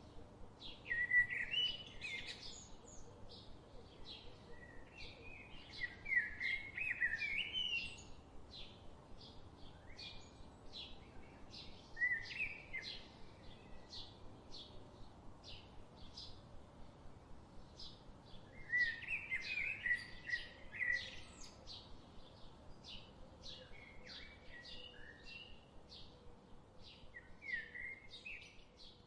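Songbirds singing: one bird repeats a short high chirp about twice a second, while another sings louder warbled phrases every few seconds, over a faint steady background hum.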